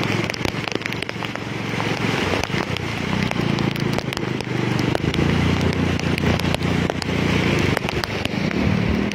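Heavy rain on a flooded street, full of sharp crackling drop impacts close to the microphone, with a low steady rumble that grows from about three seconds in.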